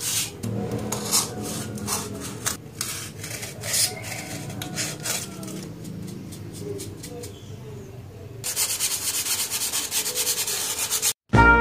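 Hand crafting work on styrofoam: irregular rubbing and scraping strokes, turning about eight seconds in into a fast, steady rasping that stops abruptly.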